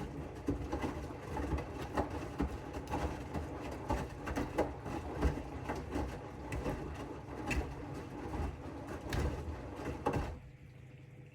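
AEG 8000 Series front-loading washing machine tumbling a load of bath mats in its drum: water sloshing with irregular thuds and clatters. The tumbling stops about ten seconds in, leaving a low steady hum.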